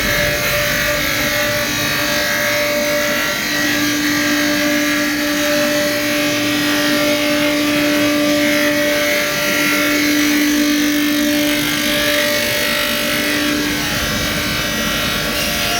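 CNC router spindle cutting a jali pattern into 18 mm MDF: a steady whine over an even hiss from the bit cutting.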